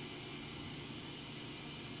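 Kuraki KBT-11WDX CNC horizontal boring mill running, a steady hum with an even hiss over it as the table traverses under the Fanuc control.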